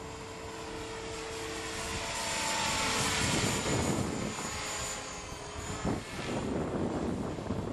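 Electric RC helicopter, a Dragonus with a JGF 500TH brushless motor, flying: a steady motor and rotor whine that fades about three seconds in. In the second half, gusts of wind rumble on the microphone.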